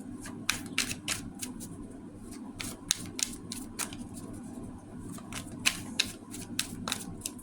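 Tarot deck being shuffled by hand: a run of sharp, irregular clicks and snaps from the cards, a few per second.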